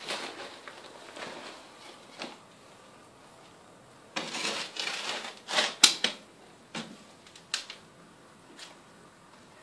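A spade scraping into garden soil and earth landing on a plastic sheet, in irregular bursts of scraping and rustling, busiest about four to six seconds in, with a few sharp clicks.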